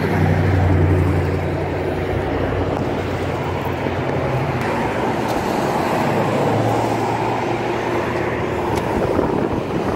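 Road traffic noise: a motor vehicle's engine hum, strongest in the first few seconds, over the steady rush of passing traffic.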